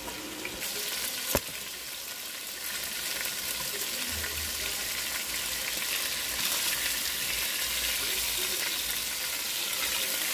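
Chicken thighs frying in hot oil in a pot: a steady sizzle that grows a little louder, with one sharp click about a second and a half in. Later, metal tongs turn the pieces over in the pan.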